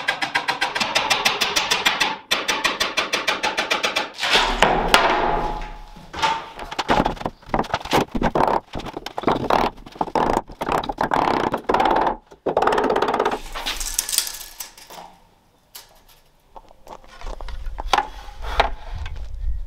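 A hammer driving nails into oak floorboards: a rapid run of quick taps, then irregular heavier blows. Near the end a power tool's motor starts with a low hum.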